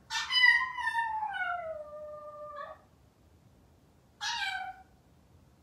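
A Maltese dog left home alone howls: one long howl that slides down in pitch over nearly three seconds, then a shorter howl about four seconds in. It is the lonely howling of a dog waiting for its family to come back.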